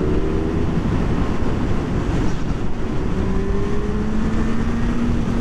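Motorcycle engine running at cruising speed with wind and road noise, its note climbing slowly in the second half.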